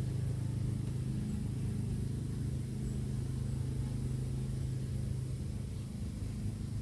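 Steady low hum of an idling engine, with a fainter higher tone that swells and fades every second or so.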